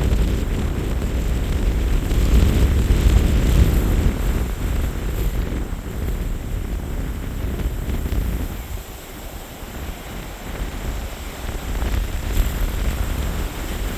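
Strong gusting wind buffeting the microphone, with a deep rumble; it eases briefly about two-thirds of the way through, then picks up again.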